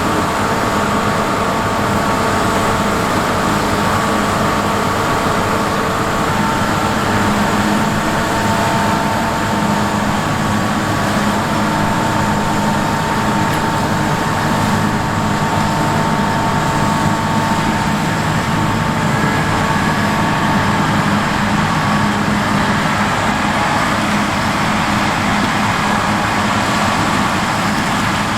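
Heavy farm machinery running steadily during a corn harvest: a constant engine drone with steady whining tones over it.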